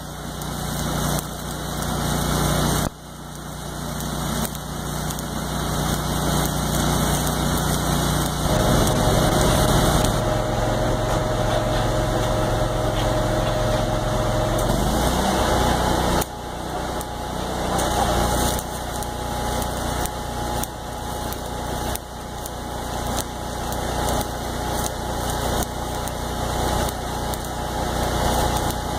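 Stick (arc) welding on steel: the arc crackling and hissing steadily as reinforcing beads are run on a log splitter blade, over a steady low engine hum. The sound changes abruptly a few times.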